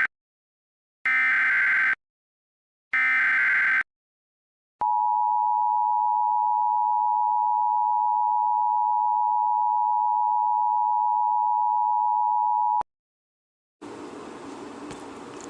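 Emergency Alert System SAME header: two roughly one-second bursts of buzzy digital data, about two seconds apart. They are followed by the EAS attention signal, a steady two-tone beep (853 and 960 Hz) held for about eight seconds that cuts off suddenly. After about a second of silence, a faint hiss begins near the end.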